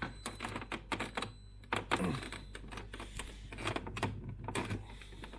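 Quick, irregular clicks and knocks of plastic as the freezer's inner back panel is handled and pulled forward against its clips.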